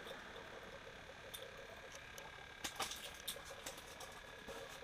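Faint clicks and small knocks from hands handling a freshly caught panfish and an ice-fishing rod and reel, a few scattered clicks, most of them in the second half, over a steady low hiss.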